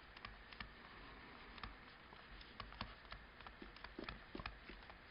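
Faint, irregular ticks and taps of a stylus on a tablet screen while words are handwritten.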